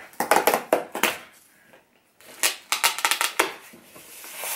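Cardboard blind box being torn open by its pull-tab and pulled apart: quick runs of crackling rips and rustles, a short pause about halfway, then more tearing and handling of the cardboard.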